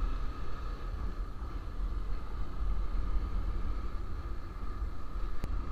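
Bajaj Pulsar motorcycle cruising on a highway: a steady engine and road rumble mixed with wind on the microphone. A brief click near the end.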